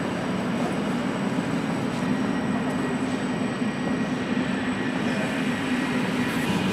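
Passenger coaches of a Czech Railways (ČD) EuroCity/EuroNight train rolling slowly in along the platform, a steady rumble of wheels on the rails.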